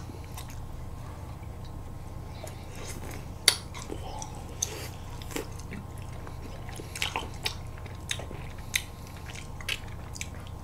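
Close-up mouth sounds of people eating ice cream bars off sticks: scattered wet biting, sucking and chewing clicks, the sharpest about three and a half seconds in, over a steady low hum.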